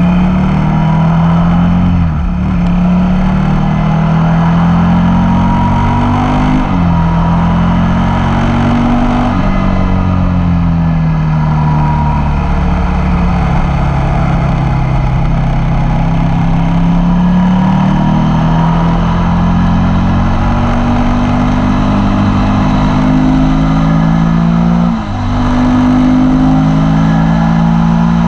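Suzuki motorcycle engine at hard throttle, revving up through the gears with quick upshifts near the start, about six seconds in and near the end. Midway the revs fall away as the bike slows into a corner, then climb again on the way out. Wind rushes over the camera throughout.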